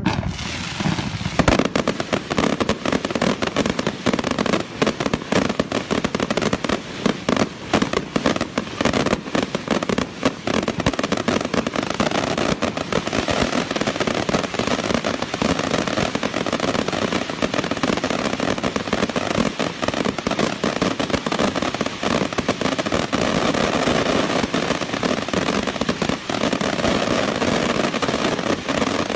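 Fireworks going off: a dense, rapid run of bangs and crackles that barely lets up.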